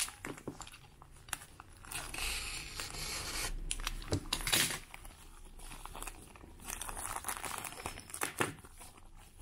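Plastic courier mailer being slit with a utility knife and pulled open, its plastic crinkling and tearing in several noisy stretches with scattered sharp clicks. Near the end a small clear plastic bag of steel jewelry rustles as it is taken out.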